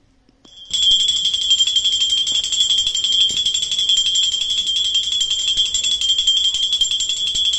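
Small brass puja hand bell rung fast and without pause, a bright steady ringing that starts about a second in.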